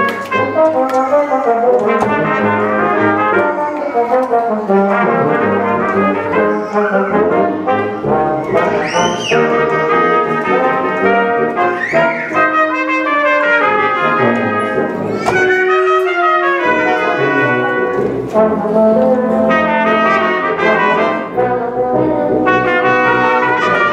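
Brass ensemble of trumpets, trombones and tuba playing a piece together, the melody moving over sustained chords without a break.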